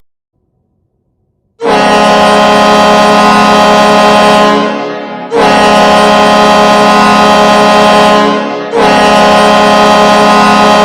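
Norfolk Admirals' arena goal horn sounding three long blasts, starting about a second and a half in: the signal for a home-team goal.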